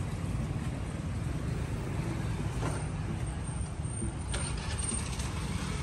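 Street traffic: motorbike and car engines running in a steady low rumble, with a few light clicks about halfway through and again near the end.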